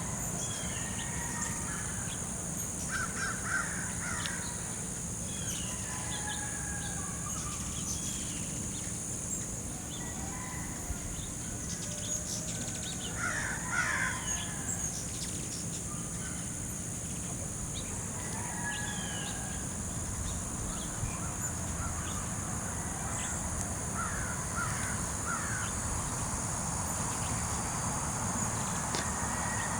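Outdoor ambience: a steady high-pitched insect drone runs throughout, under scattered short bird calls. The calls come in clusters a few seconds in, near the middle and again near the end.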